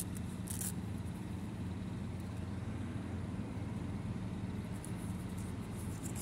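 Steady low background hum, with brief soft rustles as a mini doll's shirt is opened about half a second in and a paper tag is handled near the end.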